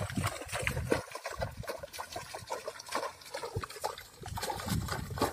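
Pond water splashing and trickling as a fine-mesh hand net is swept through the shallows, with many small irregular splashes.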